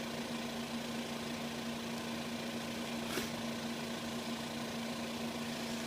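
Nebulizer air compressor running with a steady hum, with one short click about three seconds in.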